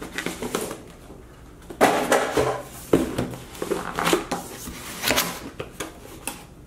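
Cardboard packaging being handled: a paper sleeve slid off a box, the box set down on a wooden table and its lid and flaps opened, giving irregular scrapes, rustles and a few sharp knocks.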